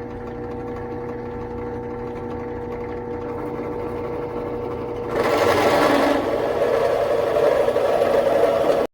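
Electric power tool motor running at a steady pitch, then louder and rougher about five seconds in as it bites into the wood; it cuts off abruptly at the end.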